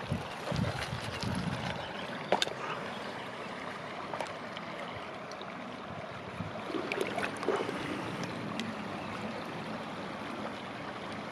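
Shallow mountain river running over stones: a steady rush of water, broken by a few sharp clicks and knocks as the plastic waterproof camera bag is handled.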